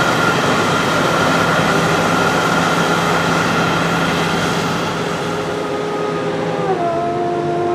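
Diesel engine of a large farm vehicle running steadily with a whining note; near the end its pitch steps down.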